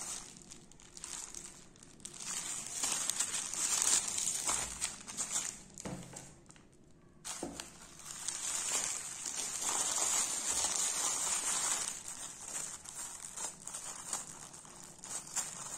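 Polythene courier mailer bag crinkling as it is handled, then cut open along its edge with scissors, the plastic rustling as the blades work through it.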